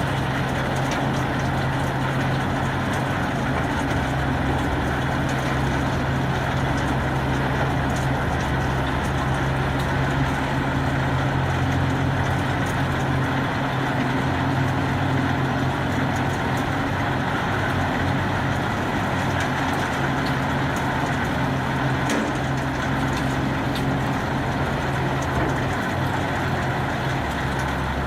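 Komptech Axtor 6010 wood shredder running steadily under its engine's constant low hum, with the drum working through wood and faint sharp cracks scattered throughout.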